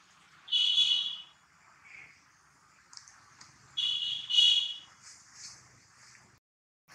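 Baby macaque crying with high, shrill calls: one about half a second in, then two more close together about four seconds in.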